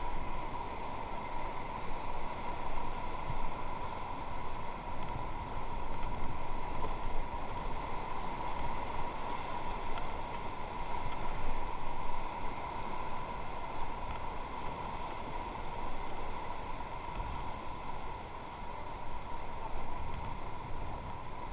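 Steady rushing of river water with a constant noisy haze and no distinct single events.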